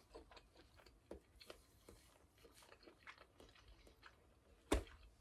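Faint close-miked chewing of food with the mouth closed: soft irregular wet clicks and crunches, with one louder sharp click a little before the end.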